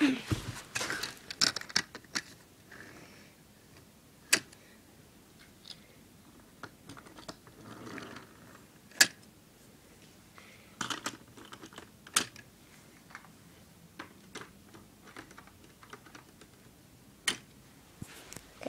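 Lego minifigures and plastic pieces being handled and clicked onto a Lego train: scattered sharp plastic clicks and taps at irregular intervals.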